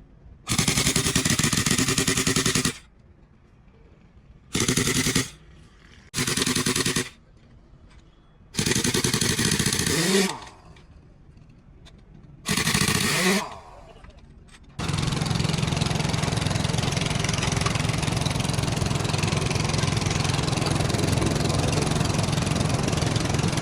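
Impact wrench driven in five short, rattling bursts, its pitch sagging and recovering as each burst ends, as used on truck wheel nuts during a tyre change. A little over halfway through, an engine starts and runs steadily with a low hum.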